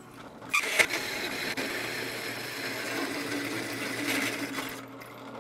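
Drill press running a hole saw through aluminum tube: a steady motor hum under the hiss and grind of the saw cutting. It starts about half a second in with a sharp click and eases off near the end.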